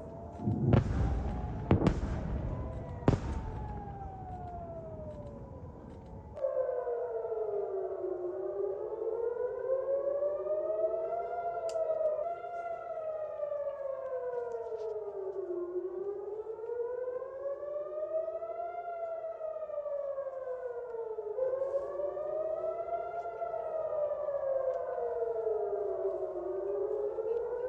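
Civil-defence air-raid sirens wailing, warning of an incoming rocket attack. For the first six seconds several sirens overlap, with three loud blasts about a second apart. After that a single siren wails clearly, its pitch rising and falling slowly over a few seconds each sweep.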